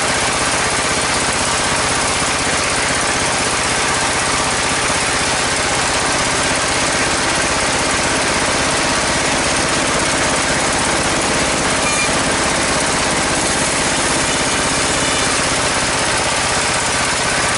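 Engine-driven sawmill bandsaw running steadily.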